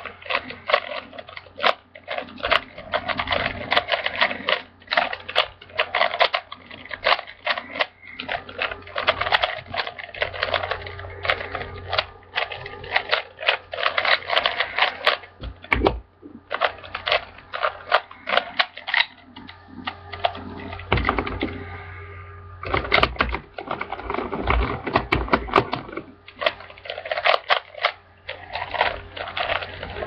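A plastic Rubik's cube being turned fast by hand: a rapid, uneven run of clacking clicks as its layers snap round, thinning out for a few seconds about two-thirds of the way in.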